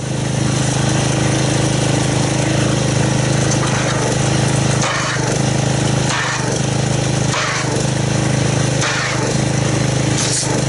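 Pressure washer running, its wand jetting water into a bucket of car-wash soap solution to agitate it into foam: a steady low mechanical hum under a hissing, churning spray. It starts abruptly and shifts briefly several times as the spray goes on.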